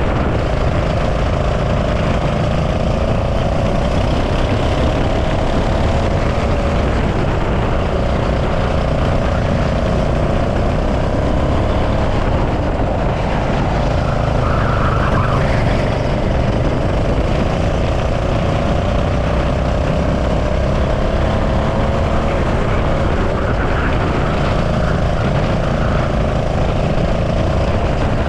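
Racing kart's engine running hard at speed, its pitch drifting up and down a little as the revs change, over a heavy rumble of wind on the body-worn microphone.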